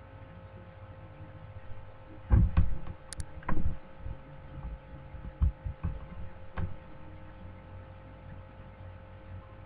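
Steady electrical hum, with a cluster of low dull thumps and one short sharp click a few seconds in, the thumps being the loudest part.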